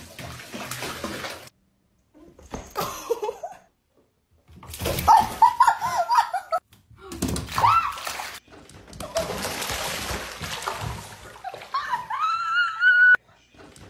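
Water splashing and sloshing in a bathtub as a cat scrambles in it, in several short stretches broken by abrupt cuts, with a few brief high wavering cries between them.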